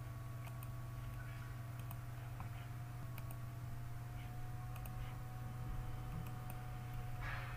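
Several short computer mouse clicks, spaced a second or so apart, over a steady low electrical hum.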